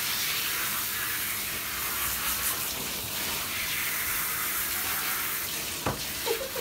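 Handheld bathtub shower head spraying water in a steady hiss onto the wet puppies' coats, with a sharp knock near the end.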